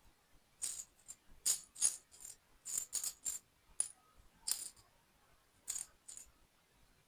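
Small hard plastic toy building pieces clicking and rattling as they are handled, in about a dozen quick, irregular clatters with a few pauses between them.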